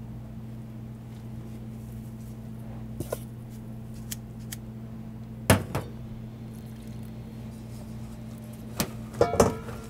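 Gloved hand working water into starch in a thin aluminium bowl, the bowl knocking and clattering a few times: a pair of small knocks about three seconds in, the loudest about five and a half seconds in, and a short cluster of ringing clatters near the end. A steady low hum runs underneath.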